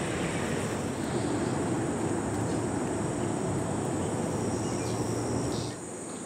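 Outdoor ambience: insects droning steadily at a high pitch over a low wash of background noise. The noise drops away abruptly near the end.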